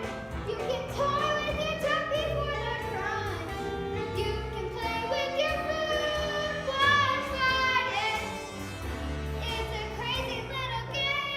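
Children's theatre cast singing a musical-theatre number with instrumental accompaniment.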